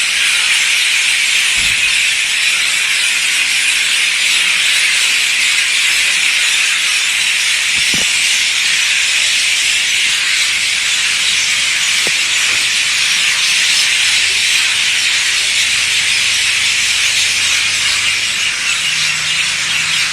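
Massed calling of a huge flock of birds gathering to roost in a tree at dusk: a loud, steady, dense din of high-pitched chatter with no single call standing out.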